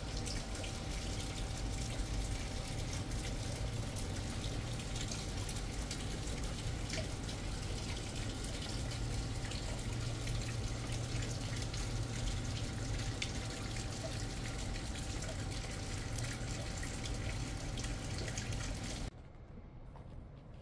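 Steady rain falling, with many small drop impacts. It cuts off suddenly near the end, giving way to quiet room tone.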